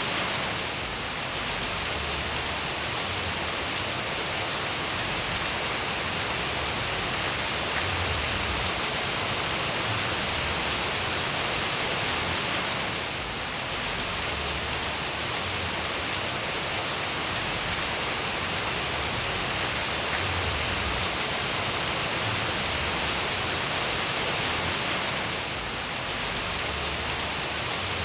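Steady, even rain falling, a constant hiss of drops. The level dips briefly about every twelve seconds.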